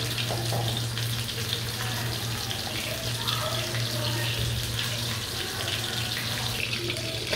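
Hilsa fish tail pieces frying in hot mustard oil in a pan: a steady sizzling hiss with fine crackle, over a low steady hum.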